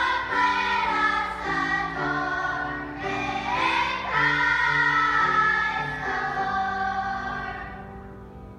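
Children's choir singing a Christmas song, the last notes held and fading out near the end.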